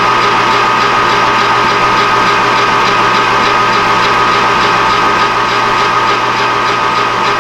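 Gear-head metal lathe running with aluminium bar stock spinning in the chuck: a steady mechanical whine with a faint regular pulse.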